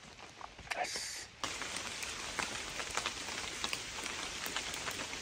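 Raindrops pattering on wet forest leaves and ground: scattered single drips at first, then from about a second and a half in a steady patter of many fine drip ticks over a soft hiss.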